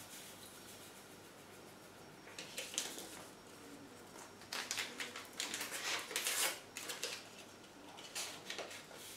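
Small paper sachets of citric acid crinkling and rustling as they are handled, torn open and emptied, in short crackly spells: a brief one about two and a half seconds in, a longer run from about four and a half to seven seconds, and a few softer ones near the end.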